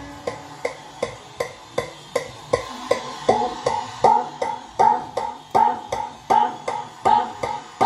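Electronic dance track with no bass: a sharp percussive hit repeats about two and a half times a second, and from about three seconds in a higher pitched stab sounds on each hit.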